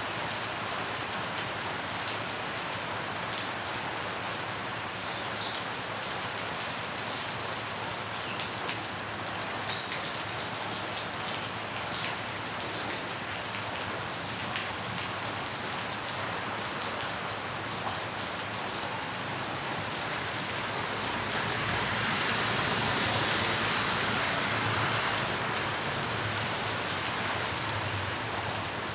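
Rain falling steadily onto muddy floodwater, a constant hiss of drops splashing into the water's surface. It grows louder for a few seconds about three-quarters of the way through, then eases back.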